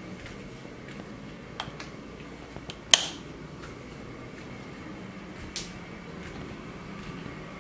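Steady hum of a room air-conditioning unit, with a few small clicks and one sharp click about three seconds in, the room light being switched on.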